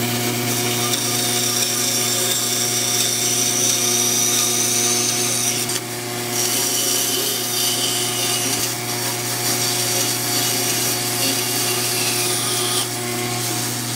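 An electric power tool running continuously while working wood, with a steady motor hum underneath; the higher cutting noise drops and changes a few times as the load on the tool shifts.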